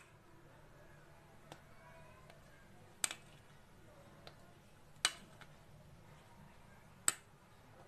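Three short, sharp clicks about two seconds apart over a faint, steady low hum.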